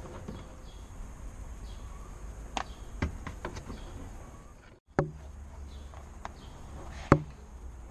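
Hands working at the plastic trim around a Dacia Duster tail light's thumb screw: a handful of light clicks and knocks of plastic, the sharpest about seven seconds in, over a steady low hum.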